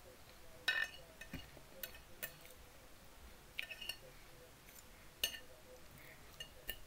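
Cutlery clinking against a plate in a scatter of separate light strikes during a meal, the sharpest about a second in.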